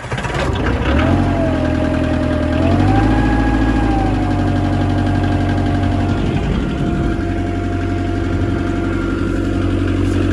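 Bobcat 743 skid steer engine catching and then running steadily, its speed rising briefly about three seconds in, with a thin steady whine over the engine note.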